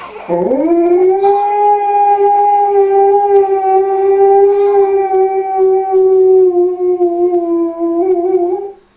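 A husky howling: one long howl that slides up at the start, holds a steady pitch for about eight seconds, dips slightly toward the end and then stops.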